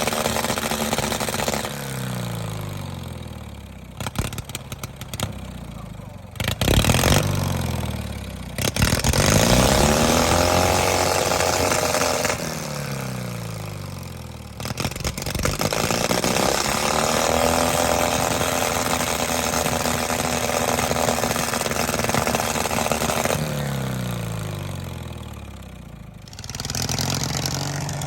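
Riding lawnmower engine revving up and winding back down several times, its pitch sliding down after each rev, with bursts of clattering knocks now and then.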